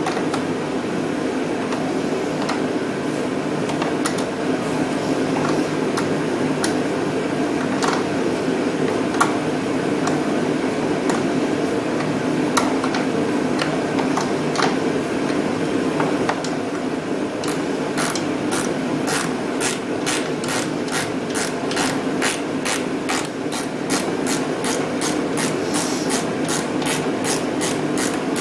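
Ratchet wrench clicking as starter mounting bolts are run in: scattered clicks at first, then a steady run of about three clicks a second in the last ten seconds. A shop heater runs steadily underneath.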